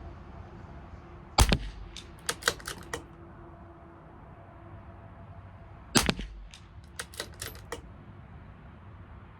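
Two shots from a CZ 457 LRP .22 LR bolt-action rifle, about four and a half seconds apart. Each shot is followed by a quick run of smaller metallic clicks as the bolt is worked to chamber the next round.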